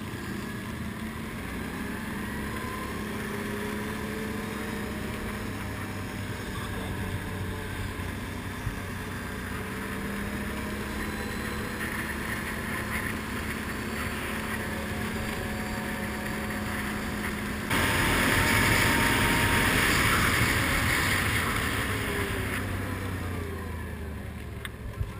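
ATV engine running at a steady road speed, with tyre and wind noise on the camera microphone. About two-thirds through, a sudden louder rushing noise comes in, then eases off near the end.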